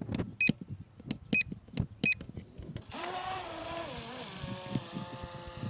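Electric motor whine of a Black Marlin RC boat running on a 3S battery. It comes in about three seconds in, dips in pitch, then holds steady. Before it there are several sharp clicks.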